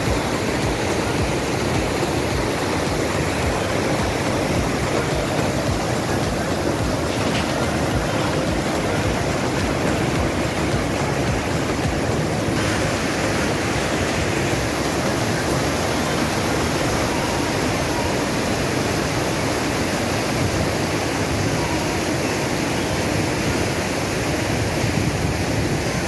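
River rapids rushing steadily over rock ledges in small cascades. The water is loud and close, changing slightly in tone about twelve seconds in.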